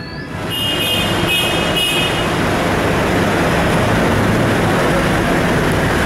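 Road traffic at a busy drop-off curb: vehicle engines idling and moving with a steady low hum. A short run of about four high beeps sounds from about half a second to two seconds in.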